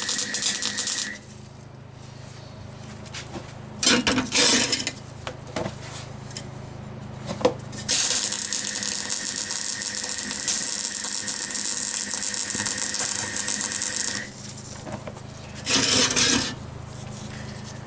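Welding arc crackling in bursts: a short weld about 4 s in, a long run of about six seconds in the middle, and another short one near the end, with a steady low electrical hum between the welds.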